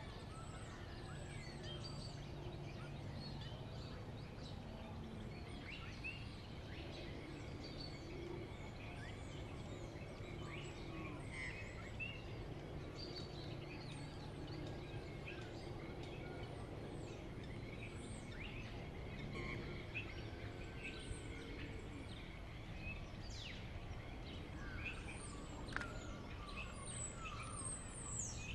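Many small birds chirping and calling, short overlapping calls and quick sweeping notes, over a steady low hum.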